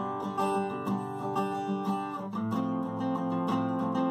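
Background music with a steady strummed rhythm, changing chord a little past halfway.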